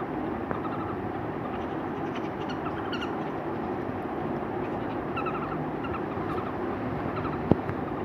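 Baby birds chirping in short clusters of quick high notes over a steady background rumble, with one sharp click about seven and a half seconds in.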